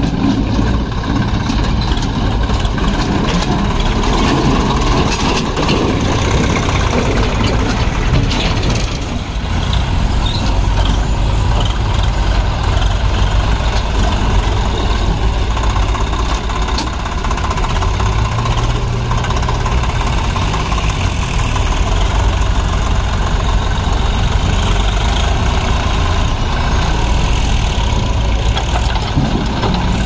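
Diesel engines of a JCB 3DX backhoe loader and a Swaraj tractor running steadily while the loader works mud.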